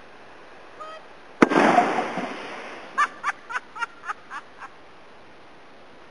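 A sharp bang followed by about a second of fading rushing noise: a blast throwing shaving cream up into a cloud. A couple of seconds later, seven short high-pitched cries in quick succession, about four a second.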